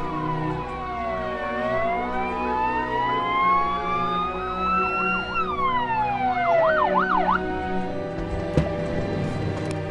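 Emergency-vehicle siren: a slow wail that falls, rises and falls again, then a few quick yelps before it cuts off, over background film music. A single sharp thump comes near the end.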